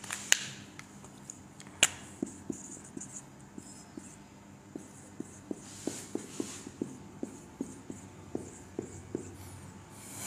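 Marker pen on a whiteboard: two sharp clicks in the first two seconds, then a run of light, irregular ticks and taps as numbers and degree signs are written.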